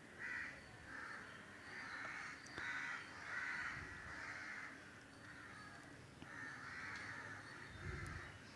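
Crows cawing faintly in a long, uneven series, about one or two caws a second.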